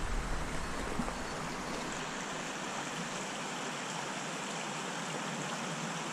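Small stream running: a steady rush of flowing water, with a low rumble in the first couple of seconds.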